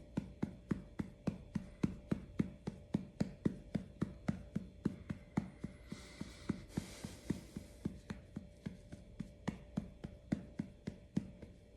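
Hand patting a baby's back to burp her: steady soft thuds at about three pats a second.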